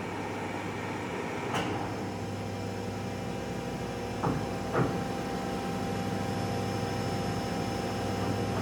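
Monarch 20-inch by 80-inch engine lathe running with a steady hum while its speed is changed. Sharp lever clunks come about one and a half seconds in, then twice more a little past four seconds. After that the hum is slightly louder, with new tones, as the spindle runs at its next speed.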